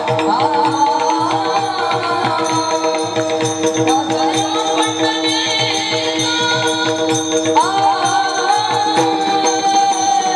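Marathi kirtan music: a sung devotional melody over steady held accompanying tones, with jingling hand percussion and a regular drum beat.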